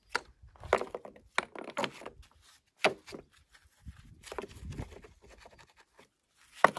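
Rough field stones knocking and scraping against each other as they are set by gloved hand onto the top of a stone well wall: a string of separate clacks, the loudest near the end.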